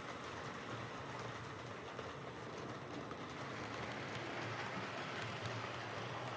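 OO gauge Oxford Rail Class 415 Adams Radial model tank locomotive running steadily along the track, its small DC motor and gearbox whirring as the wheels roll on the rails.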